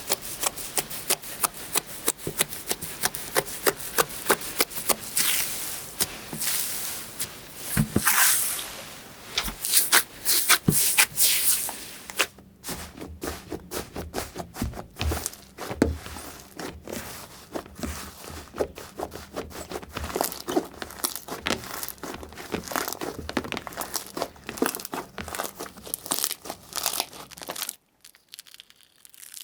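Slime being squeezed and stretched by hand, giving rapid crackling and clicking pops. The sound changes character about twelve seconds in and drops almost to silence briefly near the end.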